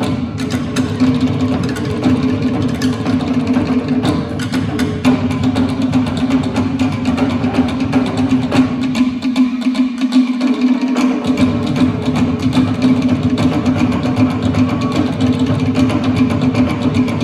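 Live Tahitian drum ensemble: tall wooden toere slit drums beaten in a rapid, dense rhythm over a deep skin drum. The deep drum drops out for about two seconds midway, then comes back in.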